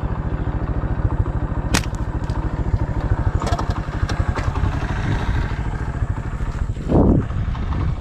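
A vehicle engine idles steadily with rapid, even firing pulses. About two seconds in there is a single sharp snap of a slingshot being shot.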